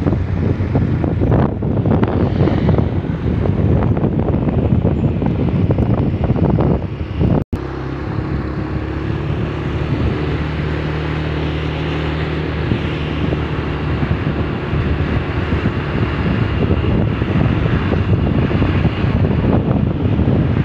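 Wind buffeting the microphone of a moving motorbike, over the steady hum of its engine. The sound drops out for an instant about seven and a half seconds in; after that the engine's tone comes through more clearly before the wind gusts build again near the end.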